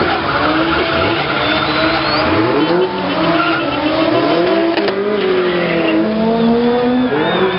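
2JZ straight-six engine in a pickup truck revving hard, its pitch climbing and falling again and again, over a steady squeal of spinning tyres during a burnout.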